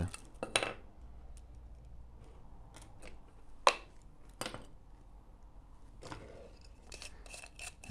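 Faint handling sounds from fitting an H1 xenon bulb into a bi-xenon projector lens: small plastic and metal clicks and taps, with one sharp click about three and a half seconds in.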